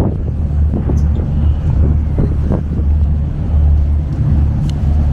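Passenger ferry under way, its engine giving a steady low drone.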